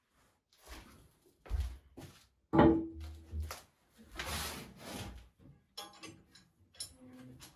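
A cast iron Dutch oven and the iron fireplace crane being handled at the hearth: a series of knocks and scrapes, with one loud metallic clank that rings briefly about two and a half seconds in.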